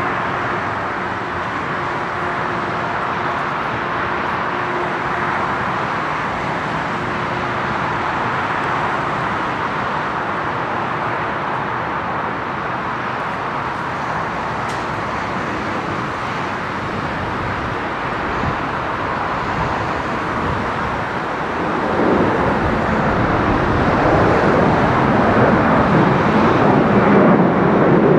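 Airbus A330-300 twin jet engines at takeoff power during the takeoff roll and climb-out, a steady rushing jet noise. It grows louder, with more low rumble, from about 22 seconds in as the climbing aircraft comes closer.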